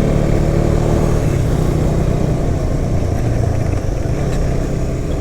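KTM 250 Duke's single-cylinder engine running steadily under way, with a brief dip in level a little before four seconds in.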